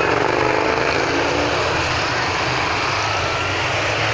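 Several motorcycles riding past one after another, their engines running in a steady, continuous, loud stream of exhaust noise.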